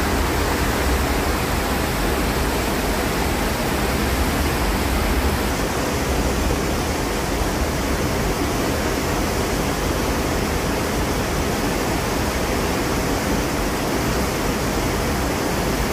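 Steady rushing noise of wind and sea on the deck of a moving cruise ship, with a deep rumble underneath.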